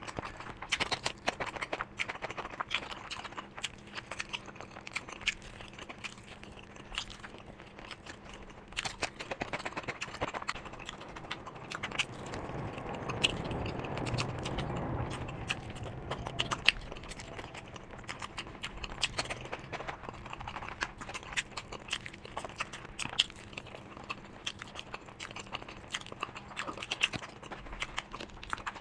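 Close-miked eating: biting, chewing and wet mouth clicks in a quick irregular series, with a louder, lower stretch of chewing around the middle.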